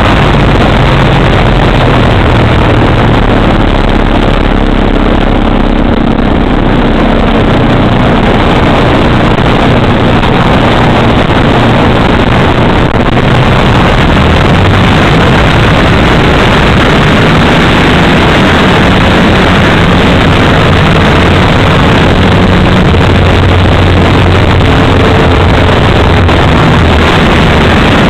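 3W two-stroke gasoline engine of a large radio-controlled aerobatic plane running in flight, heard loud from on board along with wind rush. The engine note shifts up and down several times.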